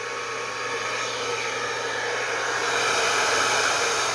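Polaris 2000 W hair dryer running on its first speed setting: a steady rush of air over a faint motor hum, getting a little louder over the first few seconds.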